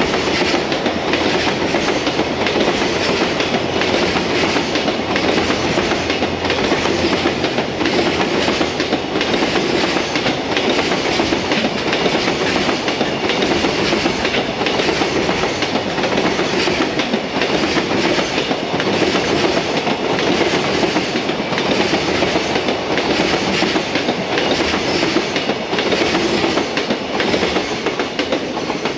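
Long freight train of loaded container wagons rolling past, wheels clattering steadily over the rail joints. The sound eases slightly near the end as the last wagon goes by.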